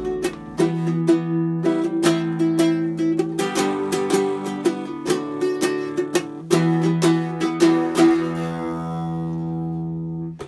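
Small nylon-string classical guitar strummed in quick chords, several strums a second, ending on a last chord that rings for about two seconds before cutting off suddenly.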